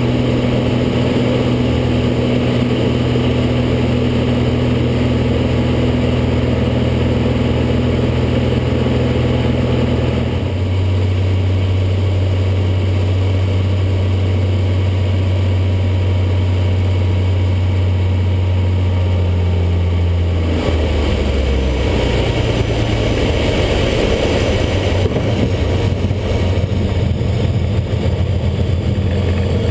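Light aircraft's piston engine and propeller droning inside the cockpit during landing. The engine note steps down in pitch about a third of the way in as power comes back. About two-thirds in it turns rougher and more uneven.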